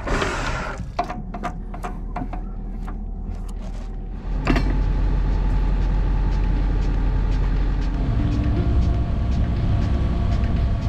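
Sailing yacht's inboard engine running steadily as the boat motors off, a steady low rumble with faint steady tones that gets louder about four seconds in and again about eight seconds in. A few short knocks sound over the quieter first seconds.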